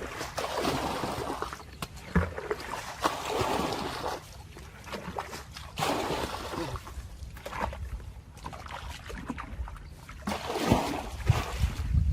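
Water splashing and sloshing in irregular surges, with scattered sharp clicks and knocks.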